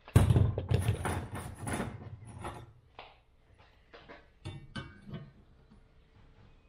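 Metal bar stock and hand tools being handled and set down, with a loud rattling clatter for the first two seconds, then scattered light clicks and knocks.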